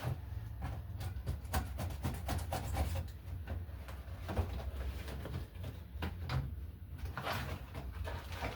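Objects and packaging being handled: scattered light clicks and knocks, with a burst of rustling near the end, over a steady low hum.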